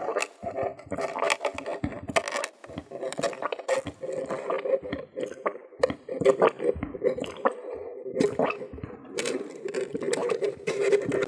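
Lemonade being drunk through a plastic straw: repeated sipping and swallowing, with many small wet mouth clicks.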